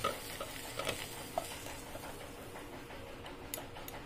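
Fried arbi and potato pieces being pushed with a spatula from a nonstick pan onto a plate: faint soft scrapes with a few light clicks as the pieces drop.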